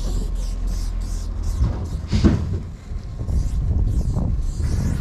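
Aerosol spray-paint can hissing in many short bursts as paint is laid onto a train car's metal side, over a steady low rumble, with a louder thump about two seconds in.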